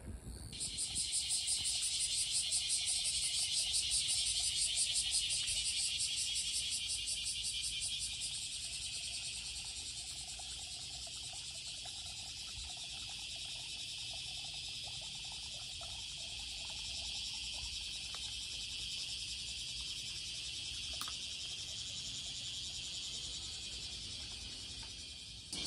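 A chorus of insects: a dense, high, shrill buzz with fast pulsing. It is loudest for the first several seconds, then goes on softer and steady.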